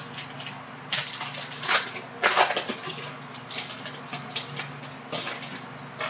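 Crinkling and crackling of a trading-card pack wrapper being torn open and the cards handled: an irregular run of short crinkles and clicks, with louder bursts about a second in, around two seconds in, and again near five seconds.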